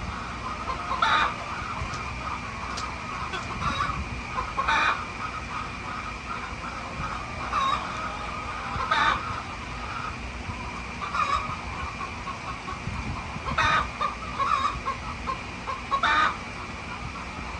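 Chickens clucking, short calls coming every second or two.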